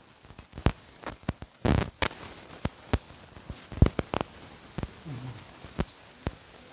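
Close-miked eating sounds of a fish curry being chewed: irregular wet mouth smacks and clicks, a few louder ones, with a brief low murmur about five seconds in.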